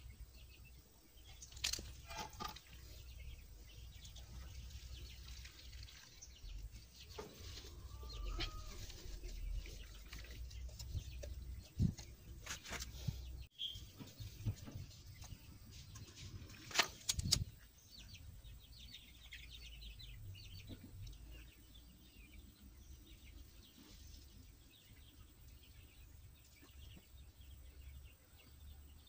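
Outdoor background of small birds chirping and a chicken clucking now and then, with a few sharp clicks and knocks from hands working close by.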